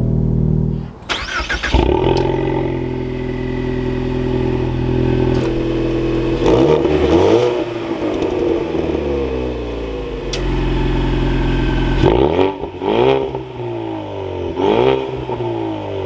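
Ford Mustang EcoBoost's 2.3-litre turbocharged four-cylinder idling steadily through its active-valve quad-tip exhaust, then revved in several quick blips, each rising and falling in pitch.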